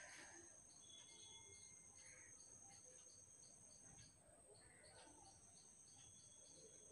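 Near silence with faint insect chirping, evenly spaced at about four chirps a second, over steady high-pitched tones.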